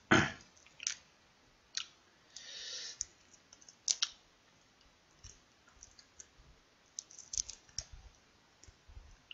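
Fingers peeling the shells off salt-grilled large shrimp: scattered sharp clicks and crackles of shell cracking and snapping, with a short rustle about two and a half seconds in.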